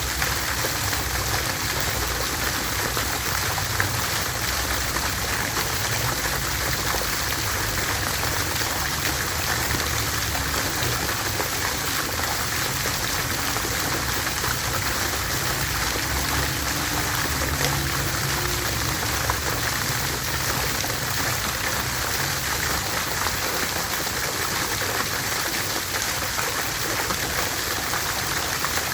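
Water fountain running, a steady splashing of falling water.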